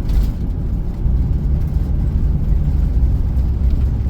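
RV driving along a road: a steady low rumble of engine and road noise.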